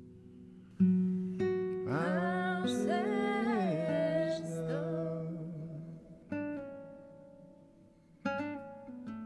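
Background music: plucked acoustic guitar notes that ring out and fade, with a voice singing a sliding phrase in the middle.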